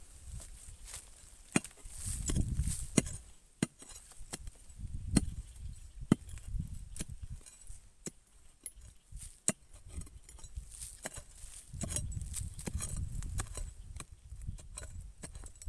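A machete-like blade chopping into dry soil and roots around a shrub's root ball. The strikes are sharp and irregular, about a dozen of them, with low rumbling between.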